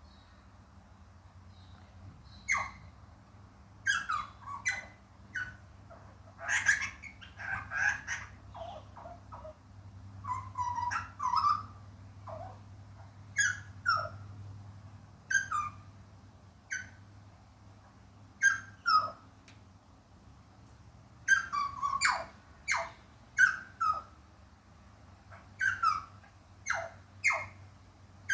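Butcherbird calling: short whistled notes that fall steeply in pitch, in small clusters repeated every second or two.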